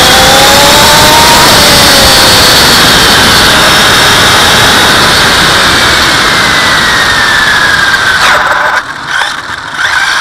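Castle 1717 brushless motor and drivetrain of a 6S Traxxas Slash 4x4 RC car whining at high speed under heavy wind and tyre noise. The whine climbs in pitch in the first second or so, then falls slowly as the car slows. Near the end the sound drops away sharply as the car comes off the throttle.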